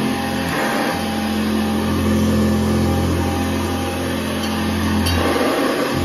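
Upright bagged vacuum cleaner running steadily on carpet, its motor giving a constant hum and whine with brushroll and suction noise. The tone shifts briefly about half a second in and again near the end as the head is pushed over the pile.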